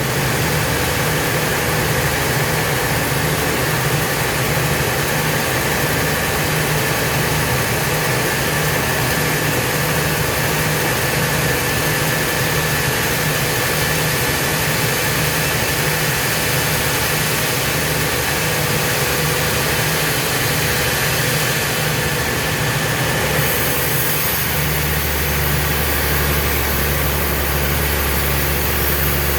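Heavy sawmill machinery running steadily with a low engine hum, its tone shifting about 24 seconds in.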